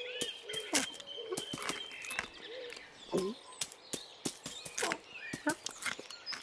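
Cartoon countryside ambience of birds chirping, with soft, quick footstep pats and a couple of short rising chirps about three and five seconds in.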